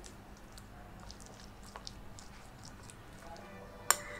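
Metal spoon mixing mashed wood apple pulp with spices in a bowl: soft squishing with light taps, and one sharp clink of the spoon against the bowl near the end.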